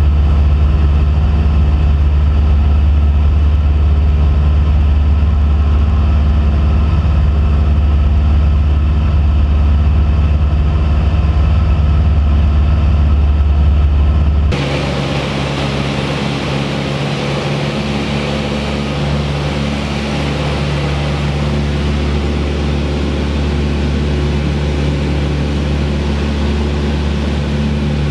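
Cessna 172P's four-cylinder Lycoming engine and propeller droning steadily in level flight. About halfway through the sound changes abruptly to a slightly quieter drone with more hiss.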